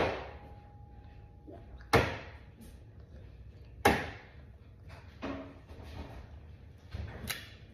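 An egg knocked against the rim of a bowl to crack its shell: sharp knocks about every two seconds, a weaker one in between and a quick double knock near the end.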